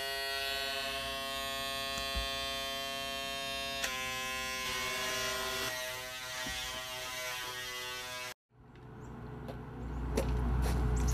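Foil electric shaver running with a steady buzz; its tone shifts about four seconds in and again a couple of seconds later, then it cuts off suddenly. After a brief silence, a low outdoor rumble with a few clicks comes in and grows louder near the end.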